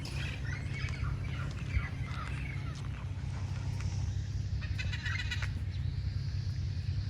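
Red-crowned parrots calling, with short wavering calls over the first few seconds and a quick rattling run of calls about five seconds in, over a steady low hum.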